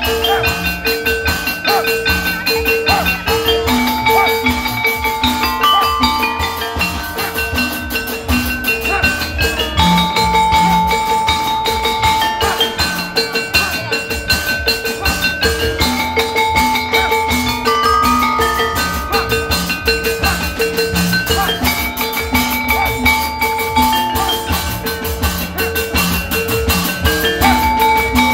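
Music with a repeating mallet-percussion melody over a steady drum beat, the phrase coming round again every few seconds.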